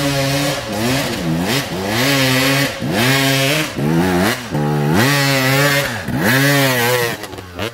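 Enduro dirt bike engine revving hard in repeated throttle bursts, its pitch climbing and dropping about once a second, then falling away near the end.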